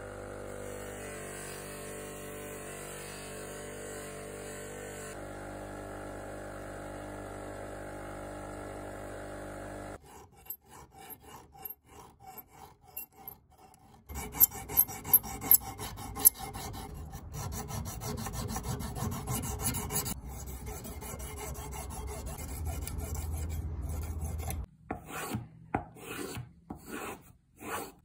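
Bench buffer motor running steadily with its buffing wheel spinning. About ten seconds in it stops, and after a few clicks a sharpening stone is stroked repeatedly along a knife edge held in a guided clamp sharpener, giving a rasping sound that stops near the end.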